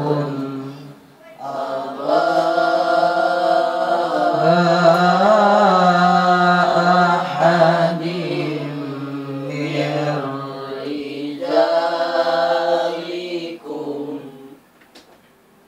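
A man's voice chanting Quranic recitation in a melodic, ornamented style through a microphone, holding long wavering notes with short breath pauses, and ending about fourteen seconds in.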